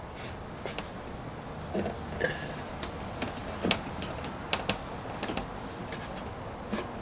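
Irregular light clicks and knocks, about a dozen, from small hard objects being handled.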